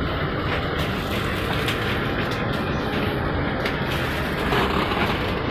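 Steady low rumble and hum inside a standing passenger train carriage, with scattered small clicks and knocks from people moving along the aisle.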